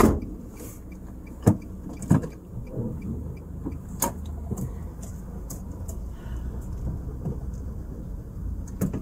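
Inside a small hatchback's cabin, a low, steady engine and road rumble as the car pulls away. A sharp knock right at the start and a few lighter knocks and clicks follow.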